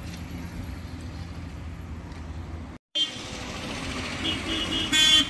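Town street traffic: a steady low rumble of vehicle engines, broken by a brief cut a little under three seconds in. After the cut comes street noise with a few short high beeps, then a loud vehicle horn toot near the end.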